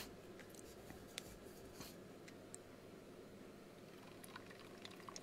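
Near silence: faint room tone with a few tiny scattered clicks.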